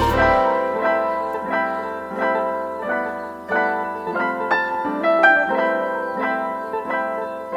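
Background music: gentle piano playing, one note or chord about every three quarters of a second.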